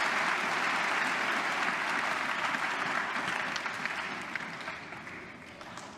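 Arena crowd applauding, dying away over the second half, with a few faint clicks near the end.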